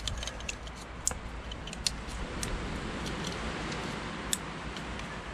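Irregular sharp clicks and light rattles of plastic wiring-harness plugs being handled and pushed onto their fittings on a diesel engine, over a steady background hiss.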